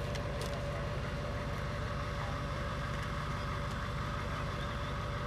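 An engine idling steadily: an even low rumble with a regular pulse and a steady hum over it.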